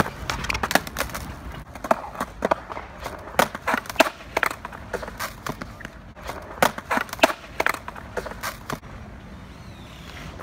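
Skateboard on concrete: repeated sharp clacks of the deck, tail and wheels hitting the ground as flatground tricks are tried, landed and bailed, coming in quick clusters and thinning out near the end.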